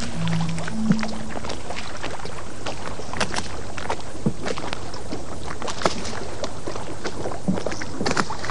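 Lake water lapping and splashing in small irregular slaps over a steady rush of wind and water.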